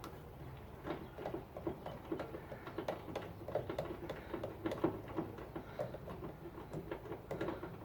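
Irregular small clicks and taps of hand work as a screw is put back in, several light ticks a second.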